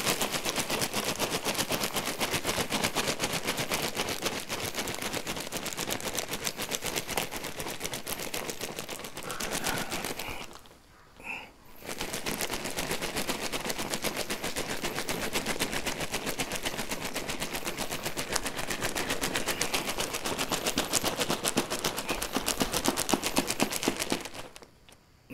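A bag of ice being shaken hard by hand to freeze ice cream: a fast, continuous rattle of ice, muffled by a flannel shirt wrapped around the bag. It stops for about a second partway through, then starts again.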